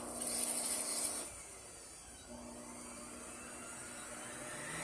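Roboclean vacuum cleaner's motor switching on abruptly and running loudly for about a second, then dropping to quieter steady running that slowly grows louder near the end.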